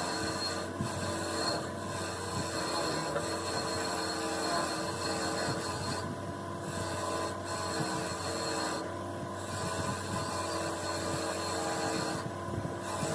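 A machine runs steadily while metal is rubbed and rasped against continuously, as in grinding, filing or polishing a synchronizer cone. The rasping thins out briefly about three times.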